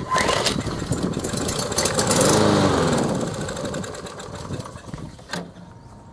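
Briggs & Stratton 550EX 140cc lawn mower engine pull-started on a shot of starting fluid: it catches, runs for a couple of seconds with its pitch rising and then falling, and dies away. Running only on the fluid shows that spark and compression are good and that the carburetor is not delivering fuel. A sharp click near the end.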